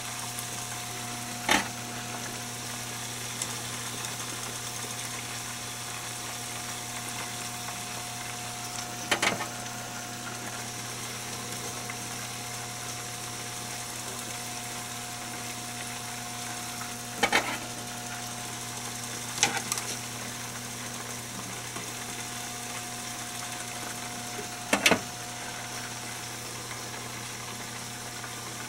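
Chicken deep-frying in oil in an open aluminium pressure-cooker pot: a steady sizzle over a constant hum. Metal tongs clink sharply against the pot five times as pieces are lifted out.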